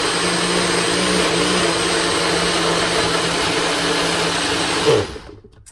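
NutriBullet-style personal blender running steadily at full speed, blending a thick protein shake. It cuts off about five seconds in, and the motor's hum drops in pitch as it winds down.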